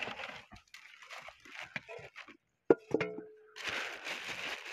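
Thin plastic bag crinkling and rustling as it is handled. About halfway through there is a sharp click, followed by a brief steady tone.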